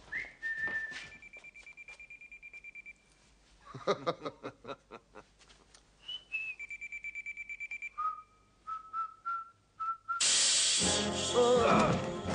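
A few long, steady whistled notes, each held for about a second or two, with a short cluster of clicks and knocks about four seconds in. Loud music comes in near the end.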